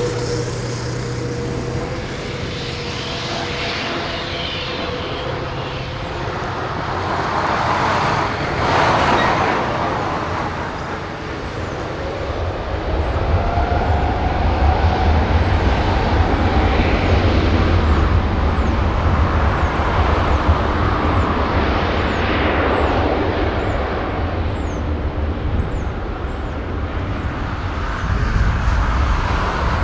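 Boeing 787-9 airliner's jet engines running up for takeoff as it begins its takeoff roll. A steady jet noise is joined about a third of the way in by a deep rumble, which gets louder and holds.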